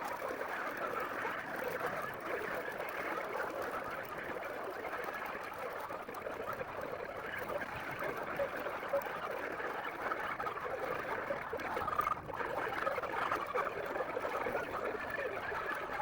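A large flock of laying hens clucking and chattering all together, a steady dense din of overlapping calls.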